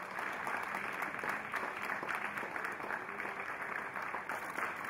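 Audience applauding steadily, many hands clapping.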